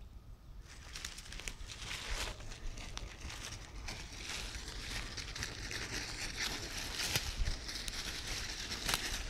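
Dry fallen leaves and twigs crunching and rustling underfoot in a dense, crackling run of steps, starting about a second in.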